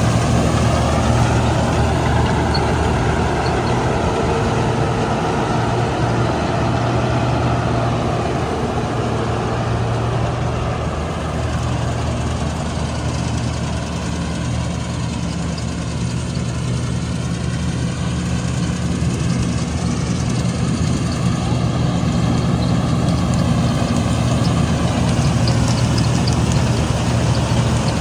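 Combine harvester's diesel engine running steadily with a low, even hum, and a slowly wavering higher whine from the machinery above it.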